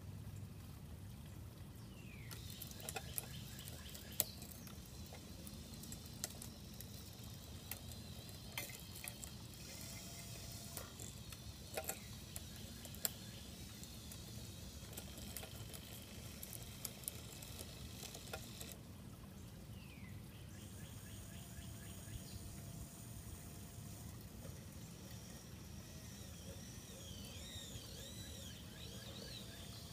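Small electric gear motors of a radio-controlled crawler crane whirring as it hoists and swings its clamshell bucket, with a run of sharp clicks and clanks from the gears and bucket.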